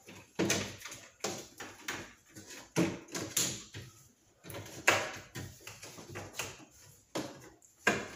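Lincoln Town Car's plastic grille being worked loose from the underside of the hood once its nuts are off. It knocks and clicks against the hood in an irregular string of sharp knocks, a few of them louder.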